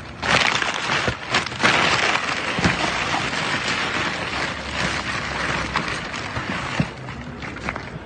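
Plastic bags, paper and cardboard rustling and crinkling, with many sharp crackles, as gloved hands dig through rubbish; it eases off a little near the end.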